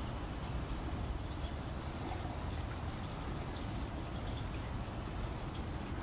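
Faint lapping and splashing of water as a river otter swims at the surface, over a steady low rumble, with a few faint scattered ticks.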